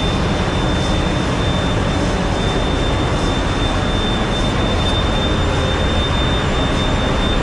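Steady, loud machinery din of a large container ship's engine room with the main engine running, with a thin, steady high whine on top.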